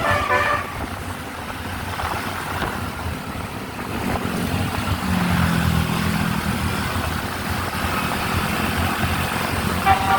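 Bus telolet horn: a multi-note tooting melody that cuts off about half a second in, then vehicle engine and road noise with a low steady hum through the middle, and the horn melody starting again at the very end.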